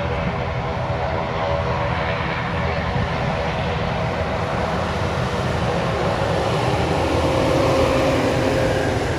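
Twin turboprop engines and propellers of an Amagi Airlines ATR 42-600 running as the aircraft moves along the runway: a steady propeller drone over a humming whine that swells a little about seven seconds in.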